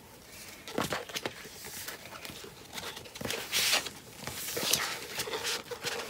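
A large rolled paper poster being unrolled and pressed flat by hand: irregular crackling rustles of stiff paper, loudest about three and a half seconds in.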